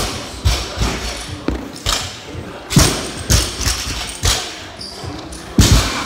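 Irregular heavy thuds, about ten in six seconds, as an athlete's hands and feet land on a rubber gym floor while he drops down and kicks up into a handstand.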